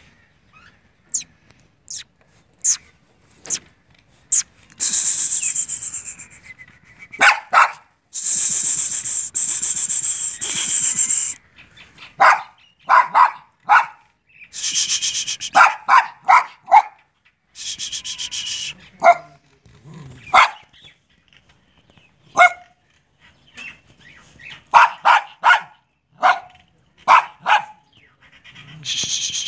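White spitz-type dog on a chain barking in short barks, singly and in quick runs of two to four, with a few stretches of hissing rustle between them and some sharp clicks in the first seconds.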